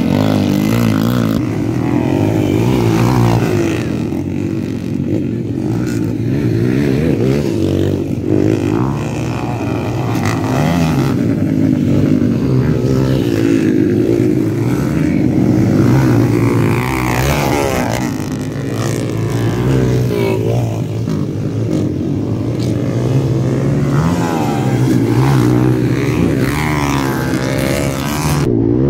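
Motocross dirt bike engines revving hard. Their pitch rises and falls again and again as the bikes accelerate out of turns and pass by.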